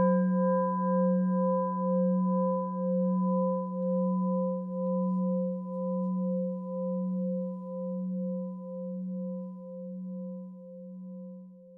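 A struck bell-like metal tone ringing out and slowly dying away, with a gentle pulsing wobble of about two or three beats a second.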